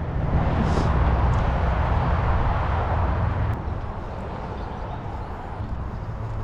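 Steady low rumble with a hiss of outdoor noise, easing about three and a half seconds in.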